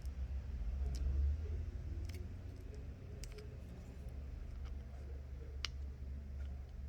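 A few short, sharp clicks and taps from handling the watch's small parts during a screen repair, over a steady low hum.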